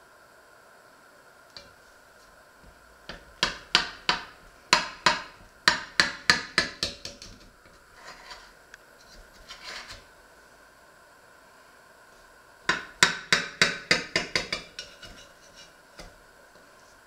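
A metal knife blade knocking and scraping against the inside wall of an enamelled cast-iron pot as it is worked around the edge of a baked plum cake, in two runs of quick, sharp clicks.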